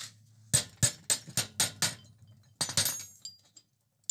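Hammer blows on a curved chisel cutting the mouth into a hot steel serpent head: six quick strikes, about four a second. Near the three-second mark come two more blows, followed by a high metallic ring.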